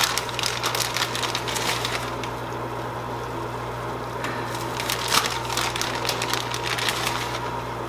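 Two spells of light crackling while shredded mozzarella is sprinkled by hand over a hot pasta bake on an oven rack: the first lasts about two seconds, the second runs from about four to seven seconds in. A steady low hum sounds underneath.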